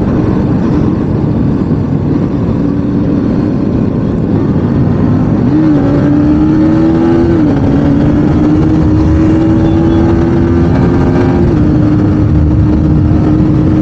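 Yamaha R15 sport bike's 155 cc single-cylinder engine pulling hard at highway speed, its note climbing about halfway through and then dropping a step twice as it shifts up. Heavy wind rush on the helmet-camera microphone runs under it.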